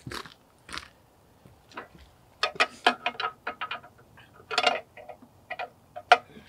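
Irregular light clicks and knocks of hands working at a snowblower's fuel shut-off valve, turning the fuel back on, with a short rustle of handling about two thirds of the way through.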